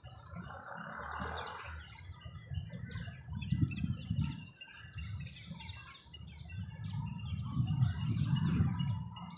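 Dawn chorus of many small birds chirping and twittering in quick, overlapping calls, over a low rumble that swells twice.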